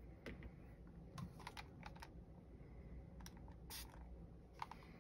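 Faint, scattered light clicks and taps of small hand tools being handled at a work surface, over near-silent room tone.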